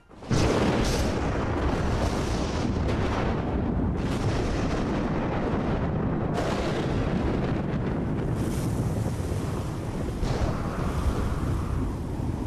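Thunderstorm: thunder breaks in suddenly, then a steady rumble of thunder with wind.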